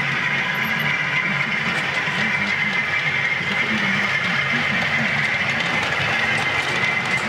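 OO gauge model train running along the layout track, a locomotive hauling coaches, making a steady mechanical running noise with a low rumble.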